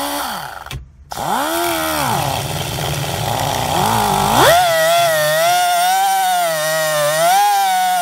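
Pneumatic cutoff wheel cutting a screwdriver slot into a headless steel bolt on a steering-column ignition lock module. It stops briefly about a second in, its whine rising and falling as it is worked against the bolt. From about four seconds in it runs steadily at a high whine while grinding into the bolt.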